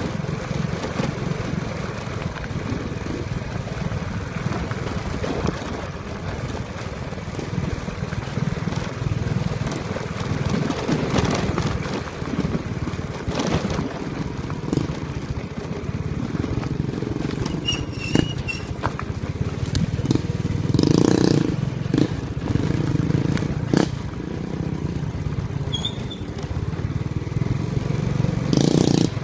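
Small motorcycle engine running steadily while riding along a bumpy dirt track, with knocks and rattles from the ride a few times.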